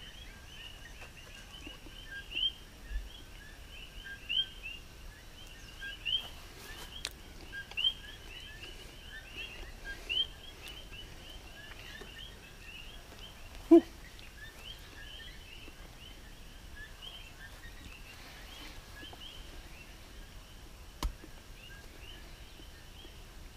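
Birds chirping steadily in short, high calls that come in louder clusters every second or two. A single loud knock sounds about fourteen seconds in, and a sharp click near the end.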